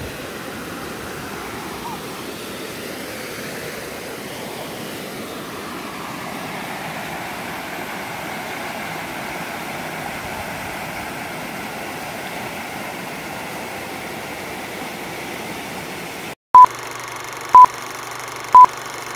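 Creek water rushing over rocky rapids, a steady noise. Near the end it cuts off, and a film-leader countdown sounds three loud, short beeps, one a second, over a faint steady hum.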